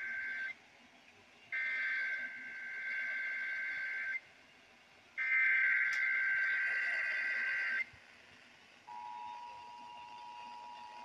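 Emergency Alert System SAME header for the Nevada Required Monthly Test, received over broadcast radio: the tail of one burst of harsh warbling data tones, then two more bursts, each about two and a half seconds long with a second's gap between them. About nine seconds in, the steady EAS two-tone attention signal begins.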